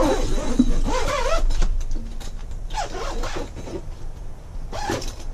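Zipper on a fabric slide-out shower enclosure being pulled shut in three strokes, its pitch wavering up and down with each pull.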